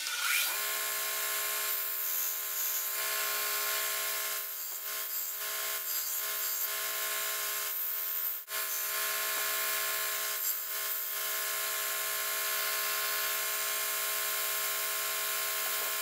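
Small bench belt sander starting up and running steadily while the steel blade of a Leatherman Sidekick is ground against the belt to take off its serrations. The grinding hiss comes and goes with the pressure, with a short break about eight seconds in.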